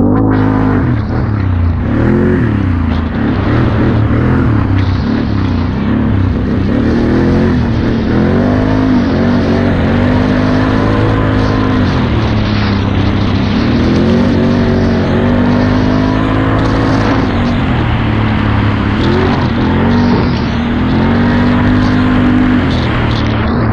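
Can-Am Outlander XT-P ATV's V-twin engine running under hard throttle at speed, its pitch repeatedly rising and falling as the rider opens and eases the throttle, over a steady rush of wind and trail noise.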